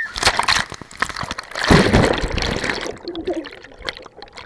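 Splashing of a person jumping feet-first into a swimming pool, then water churning and bubbling as the camera goes under the surface. The loudest, deepest surge of water comes a little under two seconds in and then eases off.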